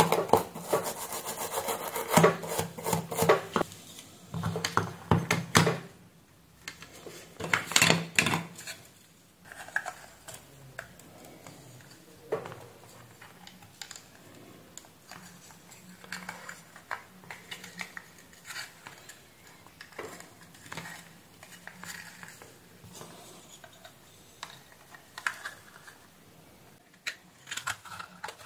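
A brush scrubbing back and forth over the soldered joints of a small circuit board, in rapid scratchy strokes for the first several seconds. It then gives way to quieter handling and small plastic clicks as the power adapter's case is fitted back together.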